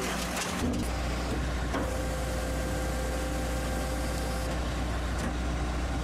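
Oberg oil filter and scrap metal shear baler running its compression cycle: a steady low machine drone that steps up about half a second in as the material in the chamber is pressed into a bale, with a steady higher tone held for a few seconds in the middle.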